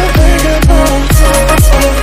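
Electronic dance background music with a steady kick drum about two beats a second under a synth melody.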